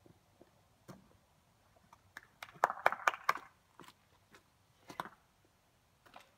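Scattered light clicks and crunches close to the microphone, thickest in a quick run of crunches about two and a half to three and a half seconds in.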